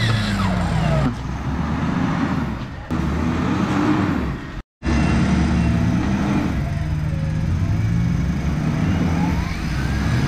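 Engine of a Mitsubishi Pajero Sport off-road SUV revving under load on a steep mud climb, its pitch rising and falling. The sound cuts out for a moment about halfway through.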